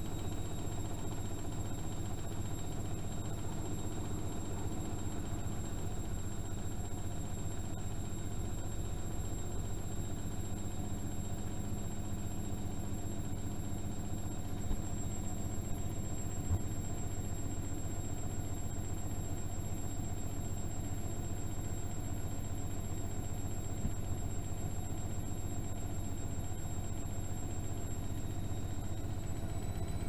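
Privileg Dynamic 6610 CN front-loading washing machine turning its drum with wet laundry: a steady motor hum with a high, steady motor whine, plus a couple of small knocks midway. Near the end the whine starts to rise in pitch as the drum speeds up.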